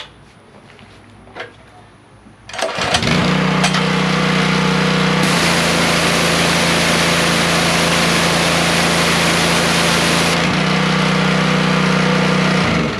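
Small gas engine of a Simpson pressure washer starting about two and a half seconds in and running steadily. From about five to ten seconds the loud hiss of the green-tip water jet joins and the engine's note dips a little under the load. The engine shuts off just before the end.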